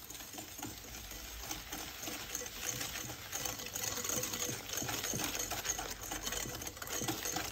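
Hand wire whisk beating egg and sugar in a glass mixing bowl: a fast, steady clatter of the metal wires ticking against the glass.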